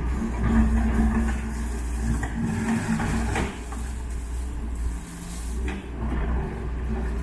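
Doosan wheeled excavator's diesel engine running steadily as its bucket works a pile of demolition rubble, with a few brief clatters of broken concrete and debris.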